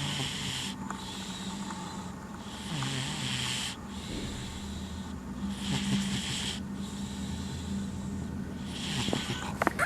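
Sleeping domestic cat snoring: a hissing breath roughly every two and a half to three seconds, four in all, with a sharp click near the end.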